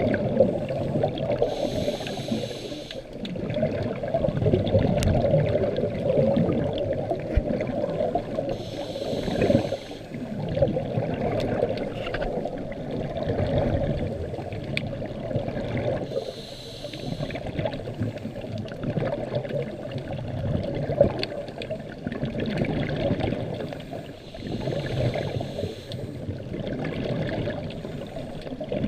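A diver breathing underwater during a sea dive: a short hissing breath comes about every seven to eight seconds, four times, over a steady wash of water and bubble noise.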